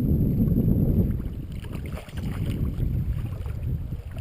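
Wind buffeting the microphone: an uneven low rumble that eases slightly about halfway through.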